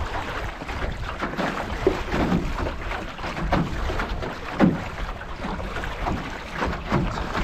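Water rushing and slapping against the aluminum hull of a Grumman 17 canoe under sail in a chop, with irregular louder wave slaps. Wind buffets the microphone throughout.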